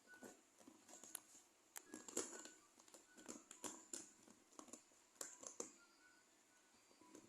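Faint, irregular scuffing and tapping of kittens' paws scampering about as they play.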